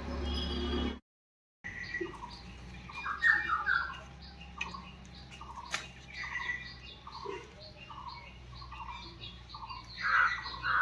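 Birds calling and chirping over and over in short repeated notes, with louder squawking calls about three seconds in and again near the end. The sound drops out completely for about half a second, about a second in.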